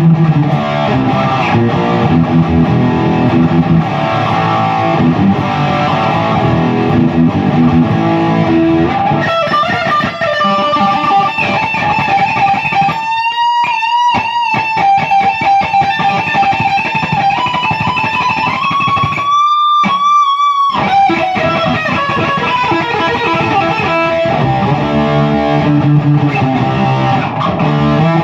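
Electric guitar played through a Zoom G1X Four multi-effects pedal in the effects loop of a Peavey 6505+ high-gain combo amp. Low, dense riffing gives way about ten seconds in to a lead line of held high notes with bends and vibrato, broken by two short gaps. Low riffing returns near the end.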